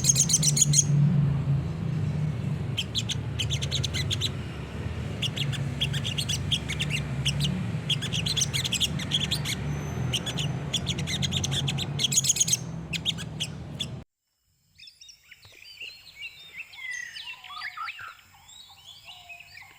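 Sogok ontong bird singing in rapid bursts of fast, high-pitched chirps over a steady low hum, cutting off abruptly about fourteen seconds in. After a brief silence comes a quieter passage of varied, gliding whistled notes.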